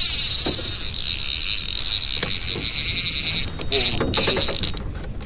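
Spinning reel's drag buzzing steadily for about three and a half seconds as a hard-hitting fish pulls line off against a drag set loose so the line won't snap, then a few short spurts.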